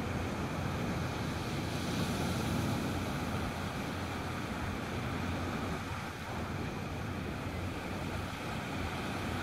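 Sea surf breaking and washing up the shore in a steady rush that swells a little about two seconds in, with wind rumbling on the microphone.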